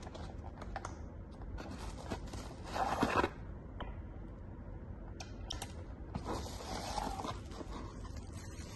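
Cardboard box and plastic packaging rustling and crinkling as they are handled during unpacking, with the loudest burst of crinkling about three seconds in and another stretch of rustling from about six to eight seconds, among scattered light clicks and taps.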